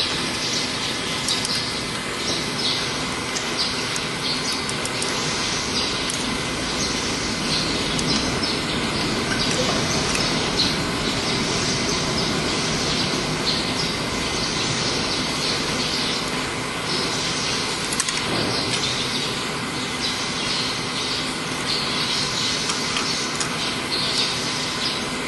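Workshop machinery running steadily with a faint hum, and a hiss that swells and fades about every second or two.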